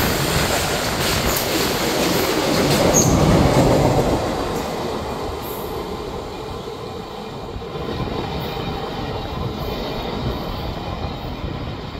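Steel wheels of BCNA covered freight wagons rushing past at high speed, a loud rail rumble and rattle. About four seconds in the last wagon clears and the sound fades away as the train recedes.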